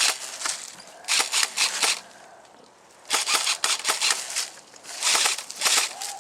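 Airsoft M4 electric rifle firing four short bursts of rapid shots, each burst under a second long.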